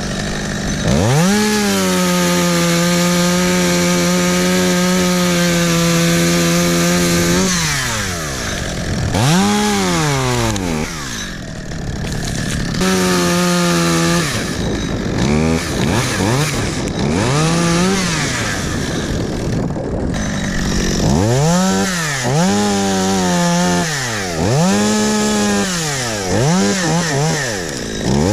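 Two-stroke chainsaw revs up and is held at full throttle for about six seconds, then drops back. It is then revved in a series of short throttle bursts, several in quick succession near the end.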